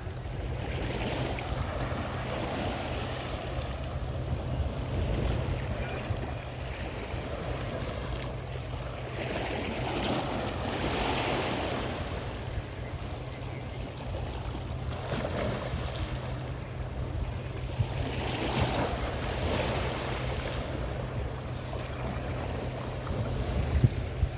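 Sea waves washing in and breaking, the surge swelling every few seconds. Underneath is a steady low rumble of wind on the microphone.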